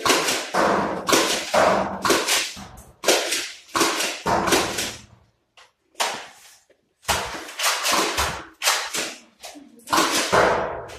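Nerf blasters being fired: a rapid series of sharp pops and smacks, about two a second, in runs broken by short pauses.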